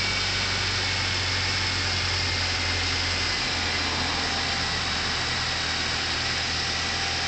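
Nissan QR25DE 2.5-litre four-cylinder engine of a 2002 Altima 2.5S idling steadily with a misfire, along with a steady hiss. The engine was burning about a quart of oil a week.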